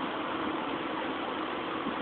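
Ford 5.4-litre Triton V8 idling steadily, still not warmed up. At this point it runs normally, without the loud diesel-like clatter the owner gets once it is warm.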